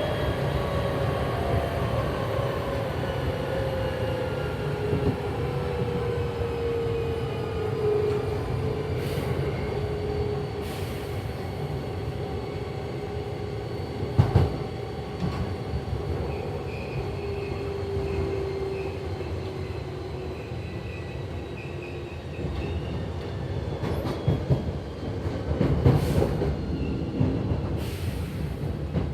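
Hankyu 7300 series electric train running, heard from inside motor car 7326: the Toyo TDK-8580-A compound-wound DC traction motors whine over the wheel rumble, with a soft rubbing quality unusual for the class, and the whine falls slowly in pitch as the train slows. A faint wavering high squeal comes in past the middle, and several sharp knocks from the wheels come in the second half.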